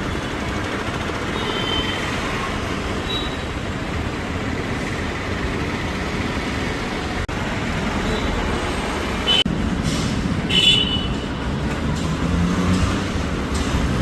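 Steady rumbling noise like heavy vehicles or machinery running, cut off for an instant twice partway through.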